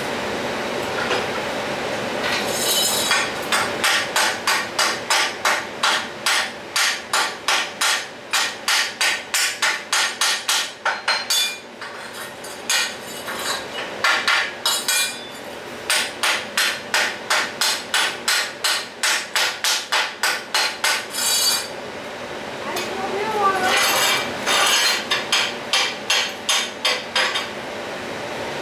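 Steel chipping hammer striking a fresh stick weld on steel plate to knock off the slag, a few sharp knocks a second in two long runs with a short pause about three-quarters of the way through.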